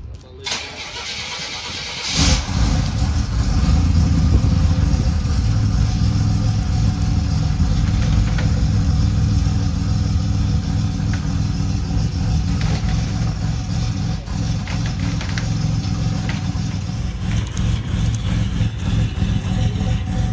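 Turbocharged Buick Grand National V6 starting about two seconds in, then idling steadily.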